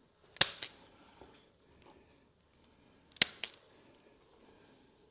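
Chiropractic Activator adjusting instrument firing twice, about three seconds apart. Each firing is a sharp spring-loaded click followed at once by a softer second click.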